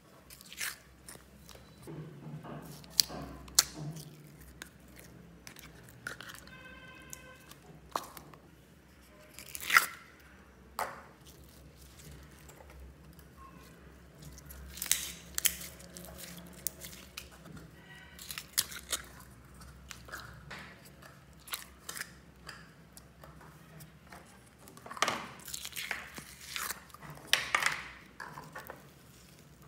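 Slime being handled, pressed and squished by hand in a bowl, giving irregular wet pops, crackles and clicks, some in quick clusters.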